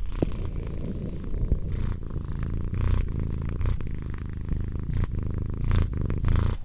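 Persian cat purring loudly, a low rumbling purr that swells and eases with each breath.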